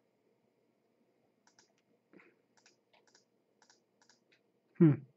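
Faint computer mouse clicks, several in quick pairs, as parts are selected in the software. Near the end comes a short, loud vocal "hmm" falling in pitch.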